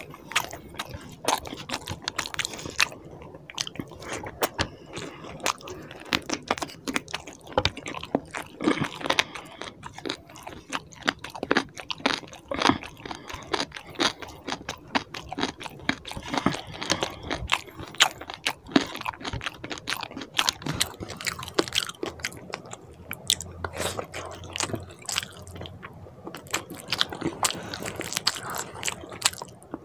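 Close-miked chewing of rice and chicken curry eaten by hand: a dense run of wet clicks, smacks and crunches. Near the start a hand squishes rice into the curry on the plate.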